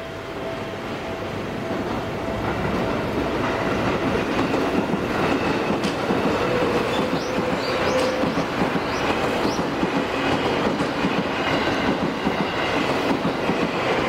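Yellow Seibu Railway electric commuter train passing over a level crossing, its wheel clatter and running noise building up over the first few seconds and then staying loud, with a few short high wheel squeals near the middle. The crossing's warning tone sounds at the start and is drowned out as the train comes close.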